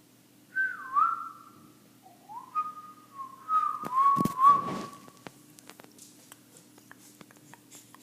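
A series of clear whistled notes, several swooping down and back up in pitch, over the first five seconds, with a thump about four seconds in; faint scattered clicks follow.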